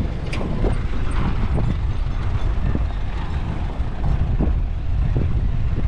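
Wind buffeting the microphone as a steady low rumble, with a few light footsteps on gravel.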